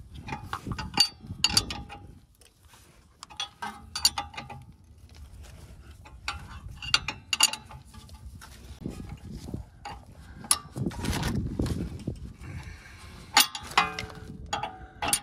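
Wrenches turning the threaded bolt of a bushing press tool while a suspension bushing is pressed into a 1993 Volvo 240's rear suspension: sharp, irregular metal clicks and clinks. Around two-thirds of the way through there is a longer rough, low noise.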